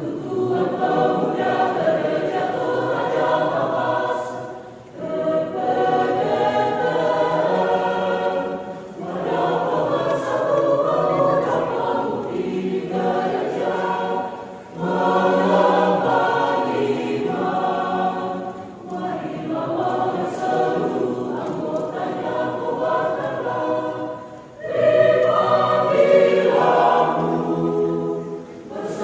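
Mixed church choir of men's and women's voices singing in parts, in phrases broken by short pauses every few seconds.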